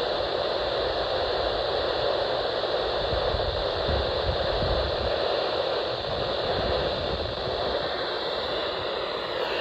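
Steady radio static: hiss from a radio receiver tuned between broadcasts, squeezed into the narrow band of a radio's audio, with a low rumble about three to five seconds in.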